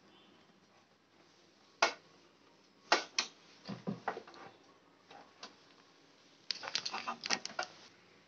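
Sharp clicks and knocks of cable connectors and a plastic power adapter plug being handled and plugged in, with a quick run of clicks near the end.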